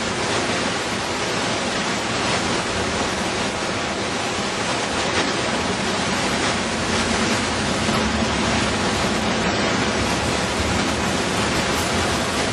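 Truck driving slowly down a rough sandy forest trail, heard as a steady, even rushing noise with no clear engine note. The truck is not four-wheel drive.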